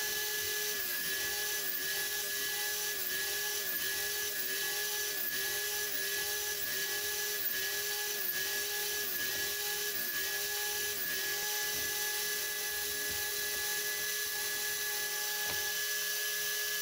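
Metabo TS 254 table saw running while cutting into a thick softwood beam. Its whine dips in pitch and recovers again and again, about one and a half times a second, for the first eleven seconds, then runs steady.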